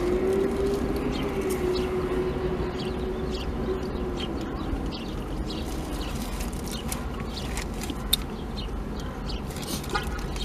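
Paper food wrapper crackling and small clicks of eating, over a low steady rumble inside a car. A steady mid-pitched tone, rising slightly at first, fades out about six seconds in.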